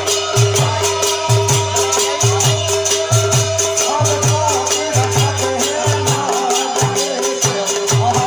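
Live phag folk music: a drum beating a steady rhythm under a fast, even jingling rattle of about four strokes a second, with a held drone tone and a wavering melody line over it.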